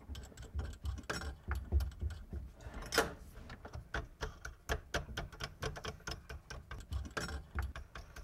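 Small irregular metal clicks and rattles of a faucet mounting nut being spun by hand up a threaded shank, with low knocks of handling; one sharper click about three seconds in.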